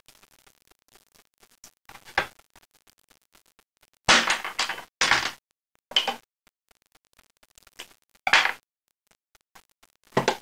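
A raw chicken drumstick being handled and its meat peeled off the bone by hand on a plastic cutting board: about six short bursts of rubbing and knocking with faint ticks between them. The loudest burst comes about four seconds in.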